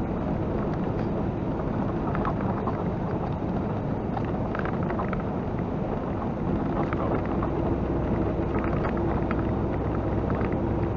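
Steady drone of a semi-truck's diesel engine and road noise heard inside the cab while it cruises downhill, with a few faint clicks.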